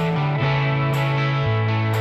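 Background music: a track of held notes, the low note stepping down about a second and a half in.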